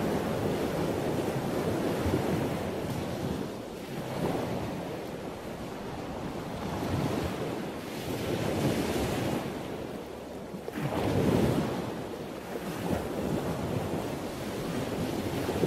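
A rushing noise like surf, swelling and ebbing every few seconds, with no clear tune over it.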